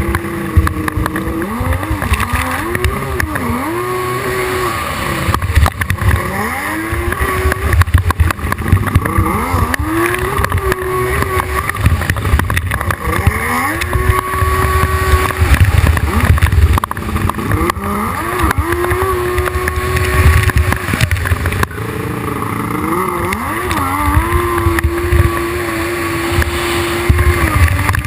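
Hydrospace 1100 jet ski engine revving up and backing off again and again. Its pitch climbs, holds for a second or two, then drops, about every three to four seconds, over a heavy low rumble.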